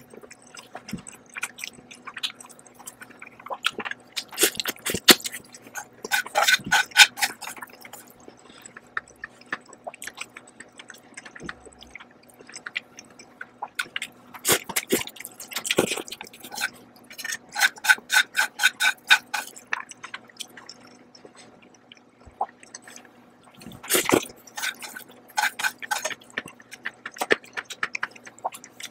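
Close-up eating sounds of a person slurping and chewing fried noodles: spells of quick wet clicks and smacks a few seconds long, three times, with quieter pauses between mouthfuls.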